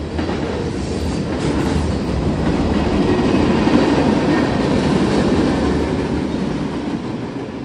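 Freight train cars (covered hoppers, tank cars and a gondola) rolling past close by: a steady rumble of steel wheels on rail that eases off near the end as the last cars go by.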